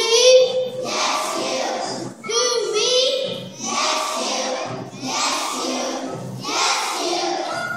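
A large group of young children singing together in short, regularly repeating phrases, with one voice standing out near the start and again about two and a half seconds in.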